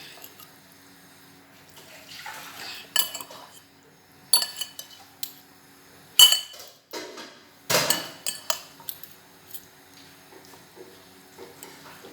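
Metal cutlery clinking and knocking against dishes in irregular strikes, the loudest about six and eight seconds in, while food is prepared with egg.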